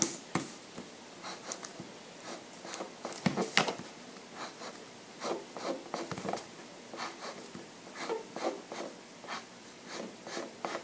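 Pencil scratching on paper in short, quick, irregular strokes.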